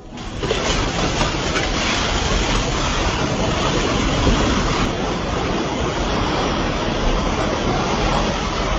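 A multi-storey apartment building collapsing in an earthquake: a loud rumble of falling masonry that sets in suddenly and continues steadily.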